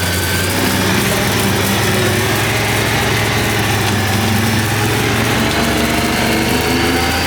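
Side-by-side utility vehicle's engine running steadily under way, its note climbing slowly as it gathers speed.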